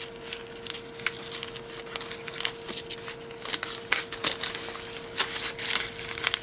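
Rustling and crinkling of a brown paper-wrapped package and its cardboard as hands handle it, getting busier after about three seconds in.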